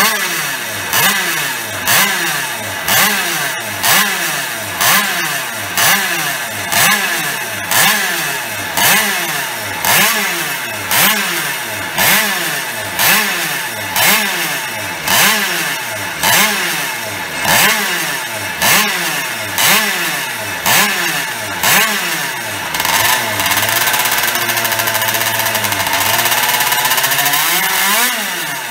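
A PCB Minarelli 50 racing motorcycle's single-cylinder two-stroke rotary-disc-valve engine is revved in short throttle blips, about one a second, for some twenty seconds. Then the revs are held up for several seconds, waver and sag, and rise again near the end.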